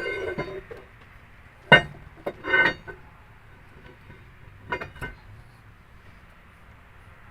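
Metal tools or parts being handled and set down: a ringing clang fades out at the start, then a few sharp knocks and short ringing clinks over a low steady background hum.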